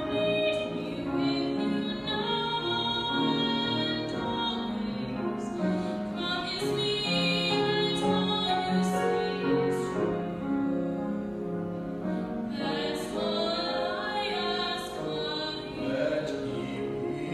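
Live singers performing a slow ballad, long held notes with vibrato, accompanied by piano.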